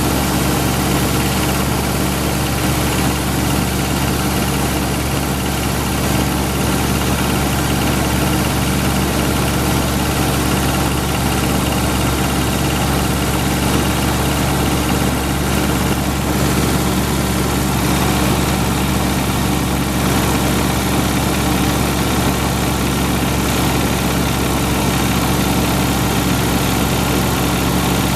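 Suzuki Escudo engine idling steadily after a cold start in −20 °C frost, run so that a knock from the cylinder head can be heard.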